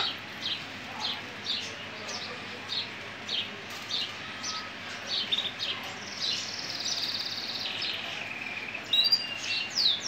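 Gibber canary, a frilled, hunchbacked fancy breed, singing. It gives short high chirps about twice a second, then from about six seconds in a long rolling trill that steps down in pitch, and a few more quick notes near the end.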